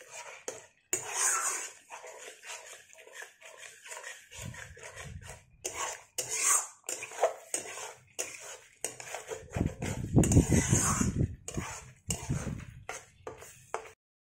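A spatula scraping and knocking against a metal kadai in quick irregular strokes as a thick masala paste is stir-fried until the oil separates. Heavier low rumbling comes in bursts, loudest about ten seconds in.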